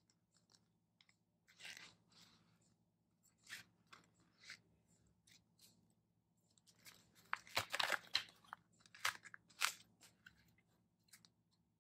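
Paper photos and plastic pocket-page sleeves rustling and crinkling as they are handled and swapped around, in scattered bursts that are busiest about two thirds of the way in.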